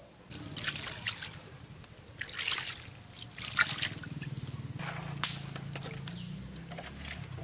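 Liquid dripping, trickling and pouring with some wet sloshing, in irregular strokes over a low steady hum.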